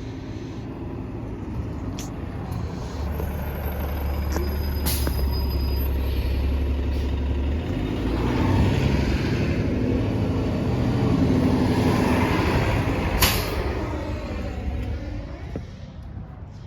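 Fairfax Connector transit bus running, growing louder and then fading as it moves off, with a short sharp hiss about 13 seconds in.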